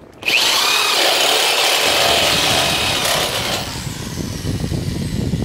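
Electric drill with a step bit spinning up and cutting into a metal headlight bracket to open up a hole. It starts about a quarter second in with a brief rise in pitch and runs loud for about three seconds, then the sound turns duller and lower.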